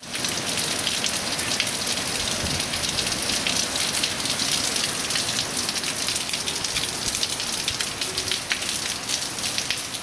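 Heavy hurricane rain pouring steadily on trees, lawn and a wet street: a constant hiss of downpour flecked with fine drop crackles.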